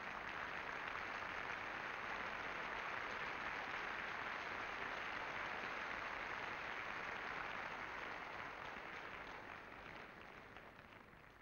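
Audience applauding, a steady patter of many hands clapping that dies away over the last couple of seconds.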